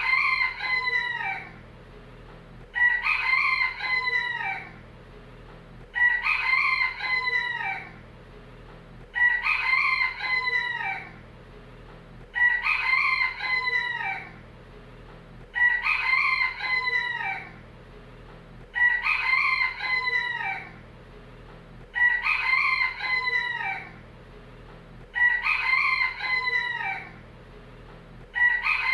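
Rooster crowing cock-a-doodle-doo over and over, the same crow repeating about every three seconds. Each crow lasts about two seconds.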